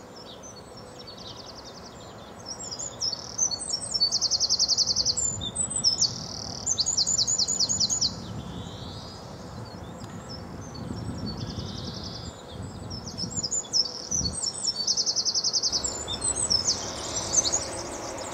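A songbird singing high, fast trilled phrases in two spells a few seconds apart, over a steady background hiss. A soft low thump comes about fourteen seconds in.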